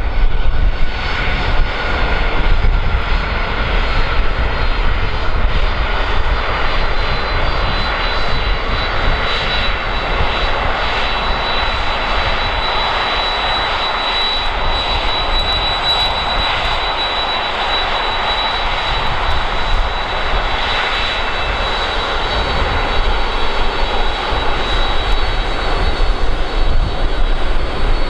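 A fixed-wing airplane's engines running loud and steady, a thin high whine held through most of it.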